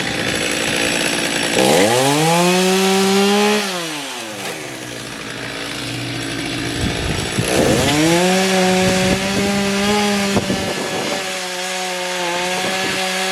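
Husqvarna 435 two-stroke chainsaw revved up to full throttle three times, each held for a few seconds, dropping back to a low idle in between.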